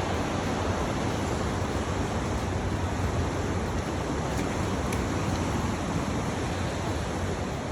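Ocean surf washing steadily against a rocky shore, a constant rushing noise.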